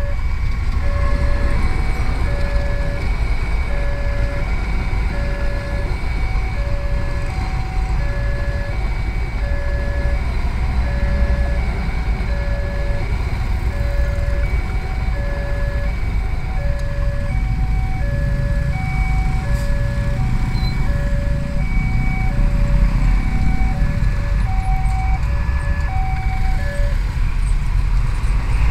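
Railway level-crossing alarm ringing a repeating electronic ding-dong, roughly one tone a second, over the low rumble of a passing passenger train and idling motorcycle engines. The alarm stops near the end as the crossing clears.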